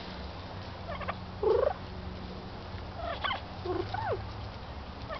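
Domestic turkey hen making short gobbling calls several times, the loudest about a second and a half in.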